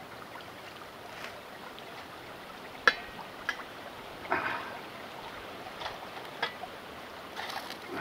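Metal clinks and short scrapes as the lid of a camp steamer pot is lifted and the wire rack and pan inside are handled, the sharpest clink about three seconds in. A creek runs steadily underneath.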